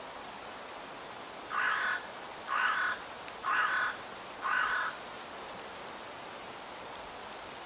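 A crow cawing four times, about a second apart, over a steady background hiss.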